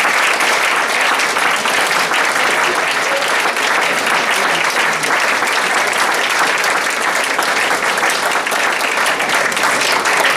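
Theatre audience applauding steadily, many hands clapping together.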